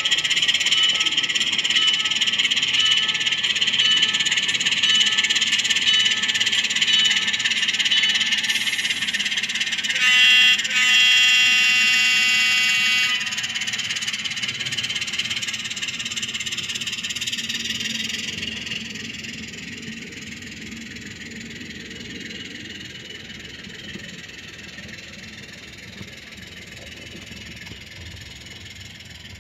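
Model diesel locomotives and freight cars running past along the track, a steady high-pitched running sound that fades away as the train moves off. About ten seconds in, a chord of several steady tones holds for about three seconds.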